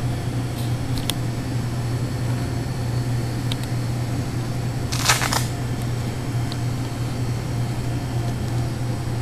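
Steady low machine hum, with a few faint clicks and a short rustling noise about five seconds in.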